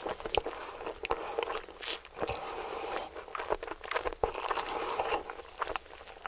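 Close-miked chewing and biting of crispy fried food, with many sharp crunches.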